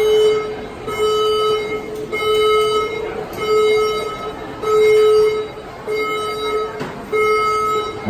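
Building fire alarm under test, sounding its emergency warning alert tone: a loud, buzzy beep of a little under a second, repeated about once a second, the signal for occupants to stand by.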